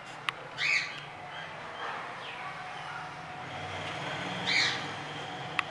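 Pet parrot squawking twice, two short loud calls about four seconds apart, over a steady background hum. A sharp click comes near the start and another near the end.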